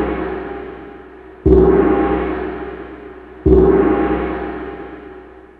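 A gong struck, its ringing fading, then struck twice more about two seconds apart, each stroke ringing down slowly.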